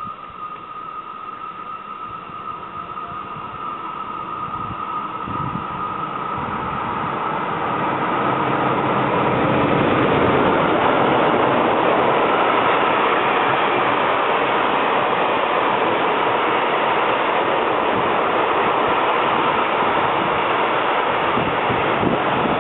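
Freight train of open-top wagons approaching and passing at speed: the wheels on the rails grow steadily louder over the first ten seconds or so, then hold a loud, even rushing noise as the wagons go by. A faint high steady tone at first fades as it nears.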